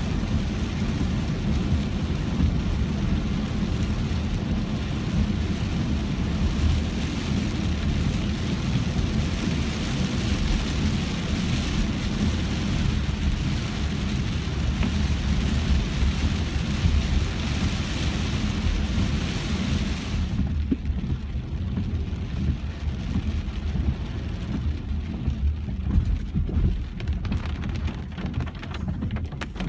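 Heavy hurricane rain pelting a moving car over a constant deep rumble. About two-thirds of the way through, the hiss of the rain drops off abruptly, leaving the low rumble and scattered drop hits.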